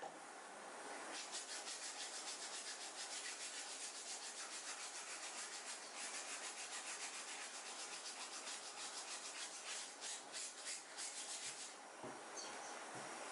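Fast back-and-forth scrubbing of shirt fabric to lift stains, at about five strokes a second, with a short pause near the end.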